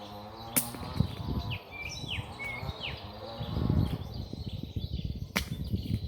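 An insect buzzing close by, rising and falling in pitch, and a small bird chirping a few short falling notes in the middle, over rumbling low noise, with two sharp clicks.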